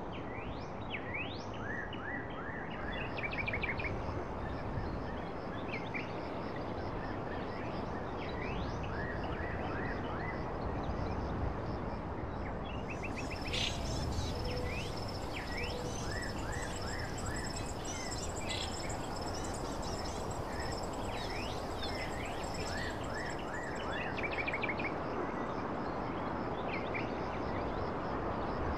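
Steady background noise with birds chirping over it again and again, in short quick rising calls, often in runs of three or four.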